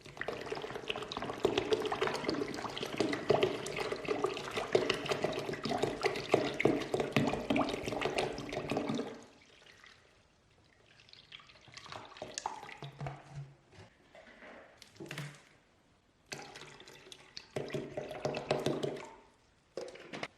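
Liquid pouring and splashing steadily for about nine seconds, then several shorter bursts of the same sound with pauses between them.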